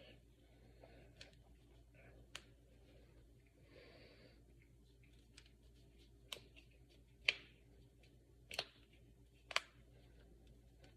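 Finger and knuckle joints cracking: about half a dozen sharp, separate pops at irregular intervals, the loudest a little past the middle.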